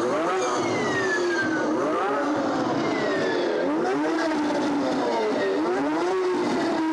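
The Emula electric motorcycle's McFly emulator playing its synthetic 'e-stroke' futuristic engine sound through the bike's speaker. It is revved up and down about four or five times: each time the pitch climbs quickly and then sinks back, with a high whine gliding downward above it.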